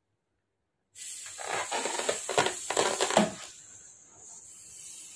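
A rubber balloon being blown up by mouth. About a second in there are a couple of seconds of loud crackly rubbing and squeaking from the balloon being handled, then a steady breathy hiss of air blown into it.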